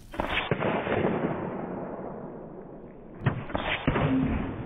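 Slowed-down sound of .25 calibre air-rifle pellets hitting and bursting full soda cans: two deep bursts, one right at the start and one a little after three seconds in, each trailing off in a long spraying hiss.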